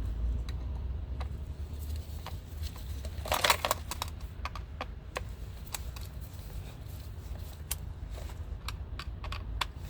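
Hand tools and the metal latch assembly clicking and tapping irregularly as the second mounting screw is driven in, with a short rattle of clicks about three and a half seconds in, over a steady low hum.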